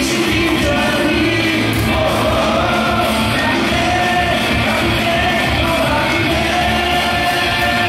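Loud cheer song playing over the ballpark's sound system, with singing and fans shouting along.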